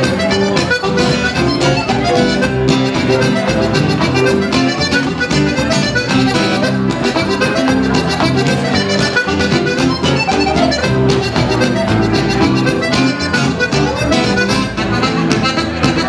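A lively French Canadian folk tune played live on a button accordion, with an upright bass and an acoustic guitar keeping a steady rhythm underneath.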